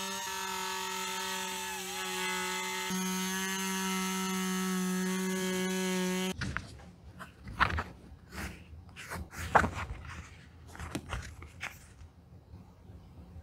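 Hand-held rotary tool with a sanding drum running at steady speed, a pitched whine that steps up slightly about three seconds in, as it sands the edge of a coated-canvas card holder to prepare it for new edge coat. It cuts off suddenly about six seconds in, and scratchy rubbing and small clicks of the card holder being handled follow.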